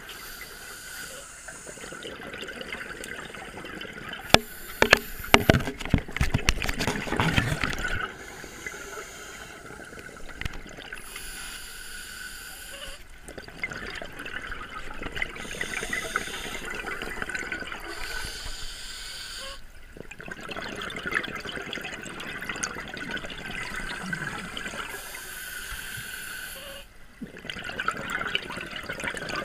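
Scuba divers breathing underwater through their regulators: long stretches of exhaust bubbling broken by short quiet pauses every six or seven seconds. A louder rush of bubbling with sharp clicks comes about four to eight seconds in.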